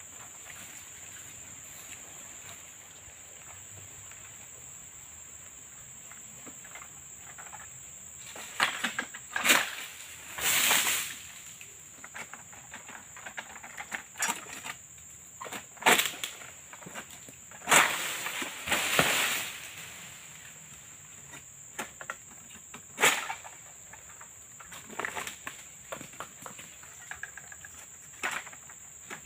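Egrek (sickle blade on a long pole) hacking at an oil palm crown: a series of sharp cracks and two longer rustling swishes of fronds, starting about eight seconds in. Under it runs a steady high insect drone.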